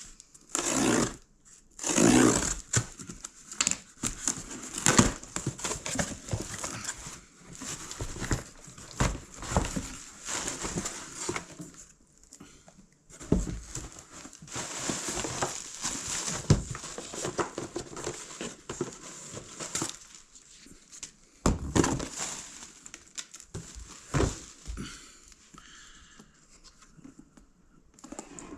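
Packaging being handled and opened by hand: irregular crinkling and tearing of wrapping, with scattered knocks as the box is moved about.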